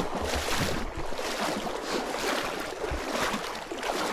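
Legs in chest waders wading through a shallow creek, water sloshing and splashing with each stride, about two strides a second.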